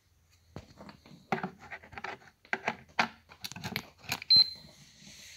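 Hobby LiPo balance charger and its leads being handled: a run of clicks and rattles of plastic and cables, then a single short high beep from the charger about four seconds in.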